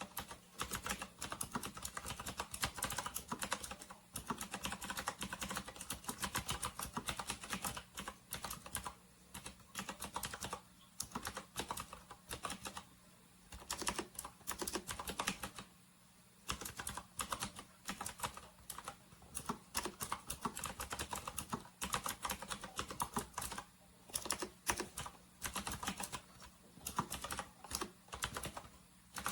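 Typing on a Camiysn retro typewriter-style mechanical keyboard: fast runs of key clicks with short pauses now and then.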